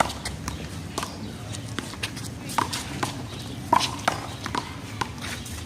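One-wall handball rally: a small rubber handball slapped by hand and rebounding off the wall and ground, a dozen or so sharp smacks at an uneven pace.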